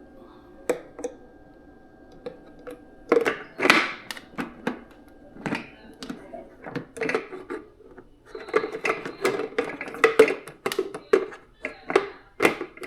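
An irregular series of sharp knocks and clatters, sparse at first and coming thick and fast in the second half.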